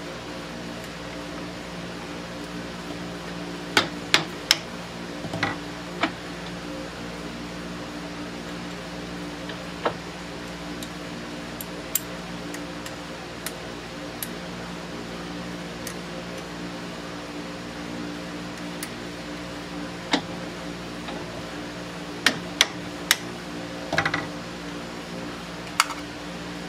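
Scattered sharp metallic clicks and clinks of a stubby hex key working the socket-head bolts that hold a lathe chuck to its adapter plate, breaking them loose. Under them runs a steady low hum.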